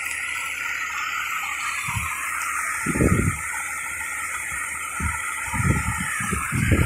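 Steady hiss of water spray at a fire, with irregular low thumps, a few early on and more from about five seconds in.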